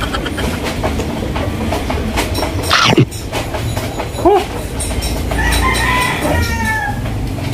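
Chickens clucking, with a sharp squawk about three seconds in and a longer call near the end, over a steady low rumble with rapid clicking.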